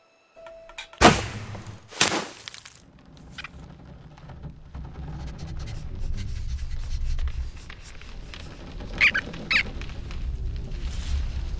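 Animated-film sound effects: two sharp hits with a short ring about a second in and again a second later, then a low rumble that builds, with two short high squeaks from the cartoon rodents near the end.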